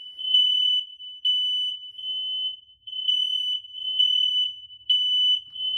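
Kidde smoke alarms sounding during a test: a shrill, high electronic tone, steady in pitch, with its loudness rising and dipping. Several alarms are wired together and sound at once.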